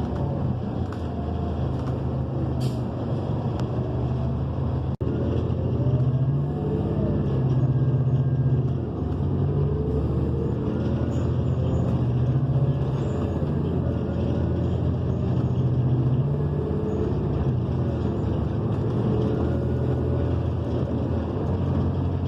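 Cummins Westport ISL G natural-gas engine and Allison automatic transmission of a New Flyer XN40 transit bus, heard from inside the cabin while it drives. The engine pitch rises and falls several times as the bus speeds up and shifts, and the sound briefly drops out about five seconds in.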